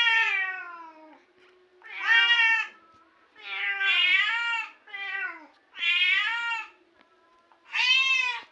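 A cat or kitten meowing over and over in high-pitched cries: about six calls, each under a second long, rising and then falling in pitch, with short gaps between them.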